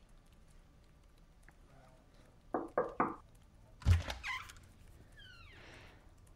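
Three quick knocks, then a louder thud about a second later.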